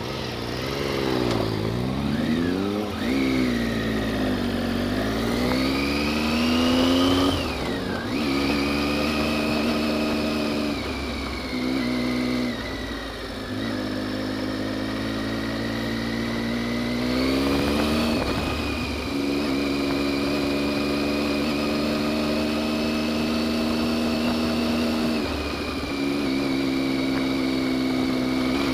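Motorcycle engine under way, its pitch rising with the throttle and dropping sharply at several gear changes and roll-offs, then holding steadier in the second half.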